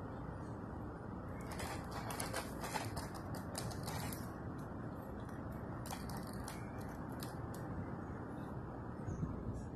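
A First Gear model garbage truck rolling across a terrazzo floor as it is pushed by hand, its wheels and parts clattering in two runs of rapid clicks over a steady hiss.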